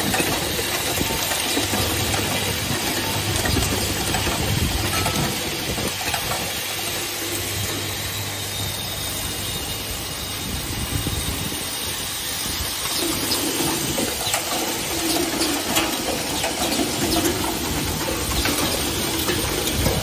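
Automatic hinge assembly machine running: a steady machine hum with hissing air and a dense, rapid clatter of clicks from its pneumatic stations and parts feed.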